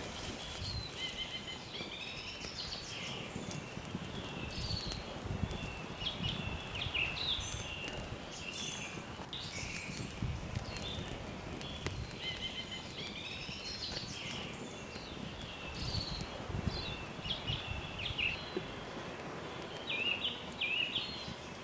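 Small birds chirping and twittering in short repeated calls, over the faint crackle and rustle of a small twig-and-tinder campfire catching.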